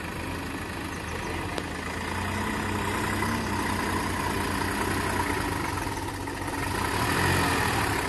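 Diesel engines of a Sonalika DI-42 RX tractor and a JCB backhoe loader running steadily, getting louder about two seconds in and again near the end as the tractor is hauled forward out of deep mud.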